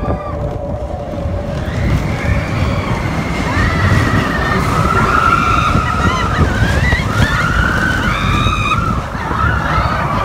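Roller coaster train running along its track with a loud low rumble, and riders screaming and yelling over it from about two seconds in.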